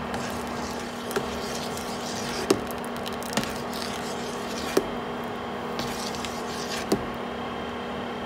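A pot of soup being stirred as rice-flour slurry is poured in to thicken it, with soft stirring sounds and about five light knocks of the utensil against the pot over a steady hum.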